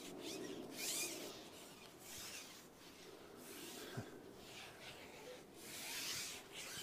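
Faint rustling in two soft swells, about a second in and again near the end, with a single light tap about four seconds in.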